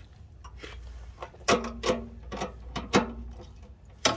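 Hand wrench working nuts on a car's underside: a handful of sharp metal clicks and clinks, a few with a short ring, spaced about half a second apart.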